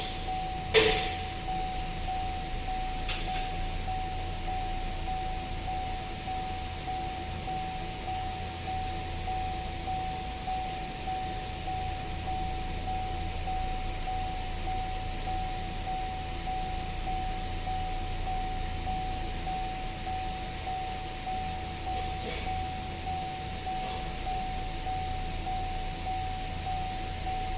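Steady low machine hum with a constant high whine, broken by a few faint clicks.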